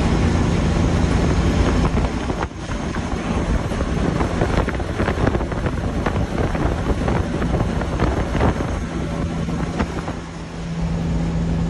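Truck engine running while driving, heard from inside the cab as a steady hum. From about two seconds in the hum gives way to a rougher rumble with rattles and knocks. It comes back steady near the end.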